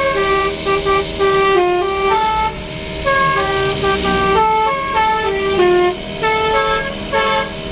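Telolet basuri musical horn on a vehicle playing a loud tune, its notes stepping up and down every few tenths of a second over a steady held tone.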